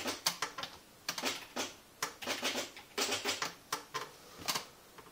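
Commodore SQ-2000 electronic typewriter printing, its print mechanism striking characters in quick clattering bursts about once a second as keys are pressed.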